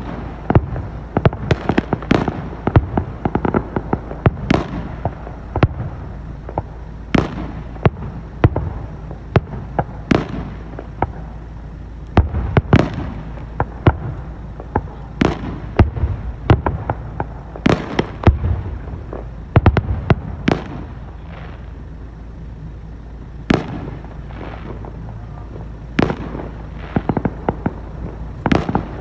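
Fireworks display: aerial shells going off in sharp bangs, dozens in irregular succession, some in quick clusters of smaller pops. They come thick for the first dozen seconds and more spaced out after that.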